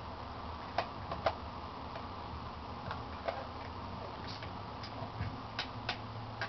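Light, sharp clicks and taps of a Kirby Model 512 vacuum cleaner's handle being fitted and fastened onto its base, coming a few at a time with pauses between and a cluster near the end.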